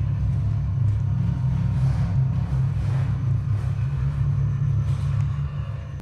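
A loud, steady low rumble, with faint footsteps about once a second over it. The rumble fades away near the end.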